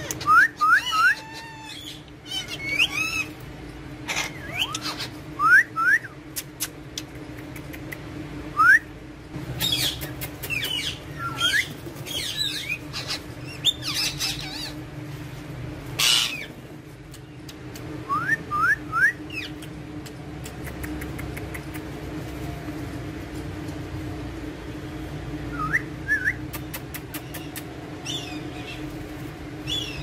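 Alexandrine parakeets calling: many short rising whistles, chirps and squawks, with sharp clicks and crackles of their beaks working a twig. The calling thins out in the last third, over a steady low hum.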